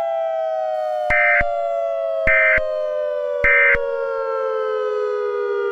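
A siren winding down, its pitch falling slowly and steadily. Over it come three short bursts of EAS end-of-message data tones, about a second apart, which mark the close of the alert.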